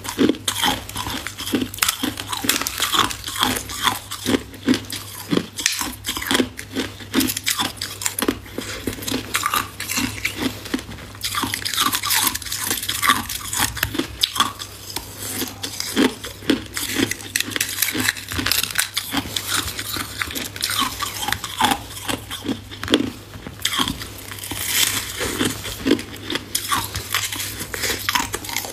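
A person biting and chewing hard ice close to the microphone: a dense, continuous run of sharp crunches and cracks over a faint steady low hum.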